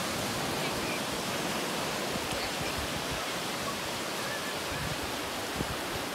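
Ocean surf breaking and washing over rocks along the shore, a steady hiss.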